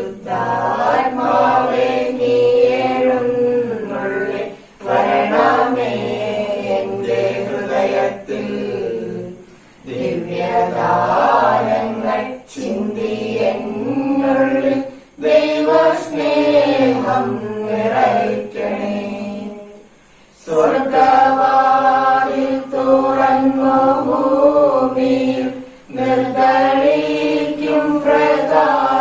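Choir singing a hymn in sung phrases a few seconds long, with short breaks between the phrases.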